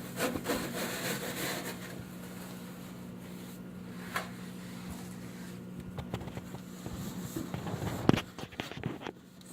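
A wet microfibre cleaning glove wiping and scrubbing the inside of a microwave, a rubbing, scraping sound with a few knocks against the oven walls, the loudest near the end. A steady low hum runs underneath.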